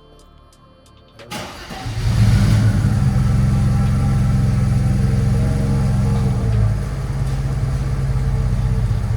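Mercedes-Benz W124's engine starting about a second in, then running steadily with a low rumble that eases slightly near the end.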